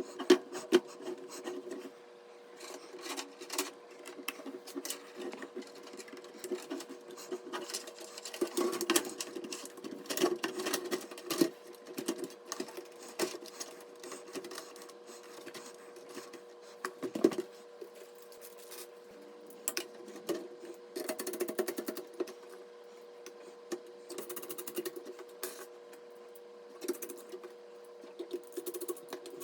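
Hands working on PC parts: irregular clicks, taps and rubbing over a steady hum.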